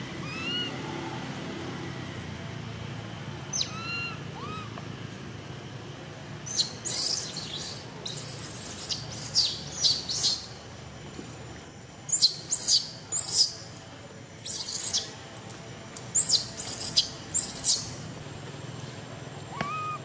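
High-pitched animal calls: a few thin rising-and-falling whistled calls near the start, then from about six seconds in, loud short chirping calls in quick clusters of two to four, repeated several times.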